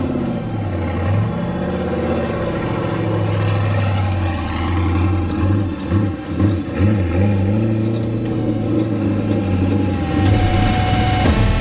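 Off-road race buggy's engine running and revving, its pitch rising and falling unevenly as the car pulls away from the pit.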